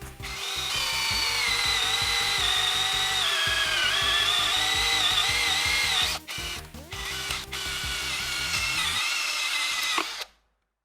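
A small high-speed electric motor whining, its pitch wavering slightly. It breaks off briefly about six seconds in, runs again, then cuts off sharply near the end.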